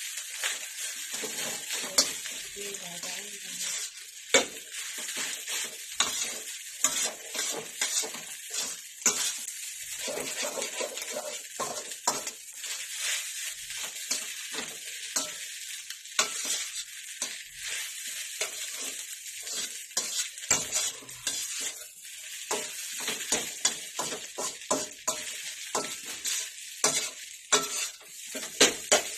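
Garlic fried rice with leftover adobo and egg sizzling in a wok-style pan while a slotted spatula stirs and tosses it. A steady frying hiss runs under frequent, irregular clicks and scrapes of the spatula against the pan.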